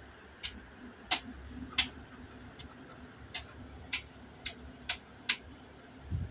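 Light, sharp ticks at uneven intervals, about one every half second, as a paintbrush dabs paint onto fabric stretched taut in an embroidery hoop. A soft thump near the end.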